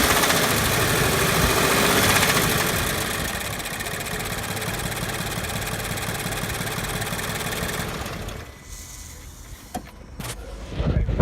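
Toyota GT86's FA20 flat-four engine running, swelling over the first two seconds and then easing off to a steady run, with the knock that the owner traced to a rattling left timing chain tensioner. About eight seconds in the engine sound drops away, leaving a few sharp knocks near the end.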